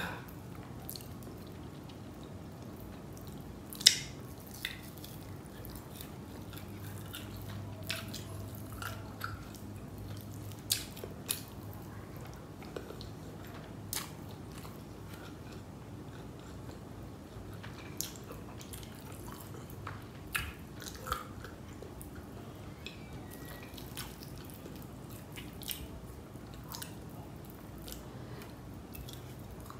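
Close-miked mouth sounds of a person eating chicken biryani by hand: scattered wet chewing smacks and clicks, the loudest about four seconds in.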